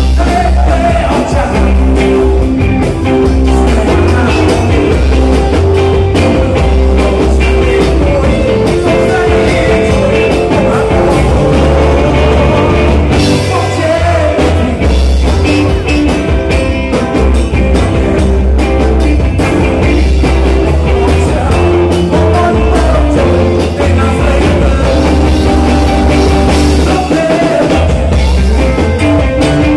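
Loud band music with a heavy, steady bass beat and a singing voice over it.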